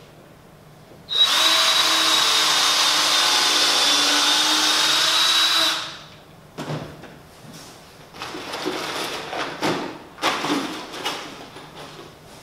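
Power drill running at a steady speed for about four and a half seconds, then slowing to a stop, as it works on the wooden chair frame. After it come a few sharp knocks and handling sounds.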